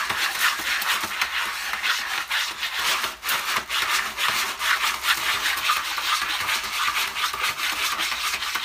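A cat digging in a litter tray of rod-shaped pellet litter, its paws raking the pellets against the tray in a continuous run of rough scratching strokes.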